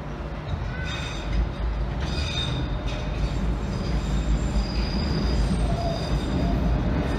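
London Underground sub-surface line train coming out of the tunnel and running into the platform: a low rumble that grows louder, with high wheel squeals coming and going from about a second in.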